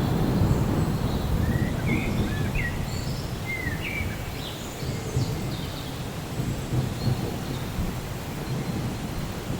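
Steady rain with a low rumble of thunder that dies away over the first few seconds. A few short high chirps come about two to five seconds in.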